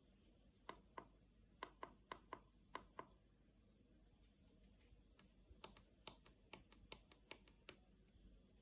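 Faint, sharp clicks and taps: a handful in the first three seconds, then a quicker run of them from about five seconds in to near the end.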